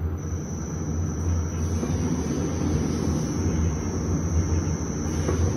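Electric motor of a steam cooking-kneading (mochi) machine running its mixer in reverse while the reverse button is held down: a steady low hum with a thin high whine.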